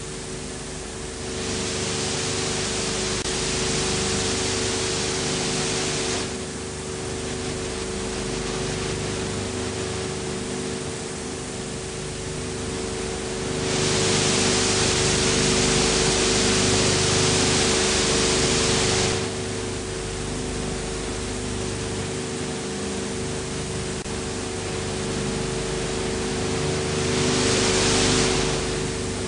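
Steady hiss and hum from an old film transfer's soundtrack, with no other sound. The hiss swells louder three times: for about four seconds near the start, for about five seconds in the middle, and briefly near the end.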